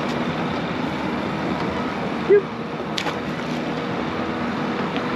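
Steady background rush of traffic noise, broken by a brief pitched sound about two seconds in, the loudest moment, and a light sharp splash about three seconds in as a small sheepshead is dropped back into the water.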